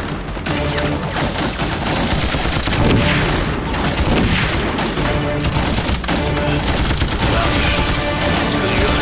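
Dense, continuous gunfire from a staged film battle: rapid machine-gun bursts mixed with rifle shots, with no let-up.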